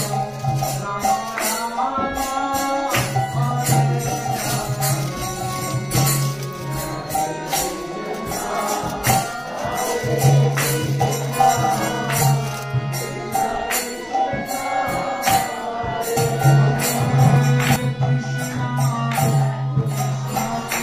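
Devotional bhajan music with jingling tambourine-like hand percussion over a sustained low drone that drops out and returns in long stretches.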